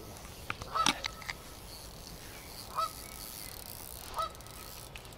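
Goose honking: three single honks spaced a second or two apart, with a few faint clicks about a second in.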